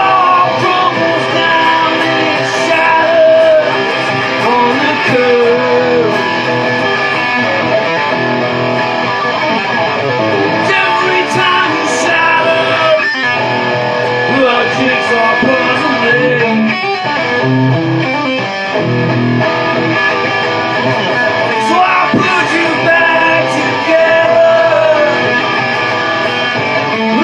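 Rock band music, an instrumental passage with guitar to the fore and pitches bending up and down over a steady band backing.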